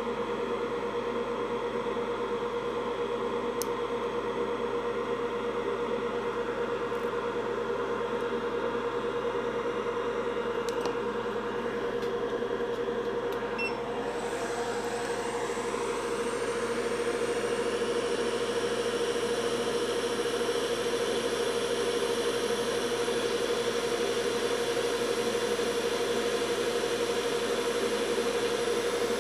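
Steady whir and hum of a hot-air rework station's blower. About halfway through a rising glide and a hiss come in and it stays louder, as the airflow is turned up.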